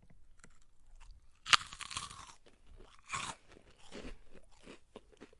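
Someone biting into crunchy food and chewing: a loud crunch about a second and a half in, another crunch about three seconds in, then smaller crunches of chewing.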